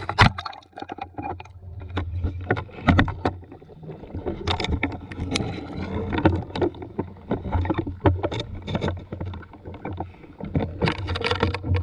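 Water sloshing and splashing with irregular knocks and clicks.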